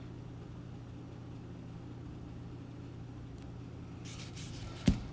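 Steady low background hum, then a short rustle of handling about four seconds in, ending in one sharp knock as the iPhone 8 Plus is set down on the plastic-covered table.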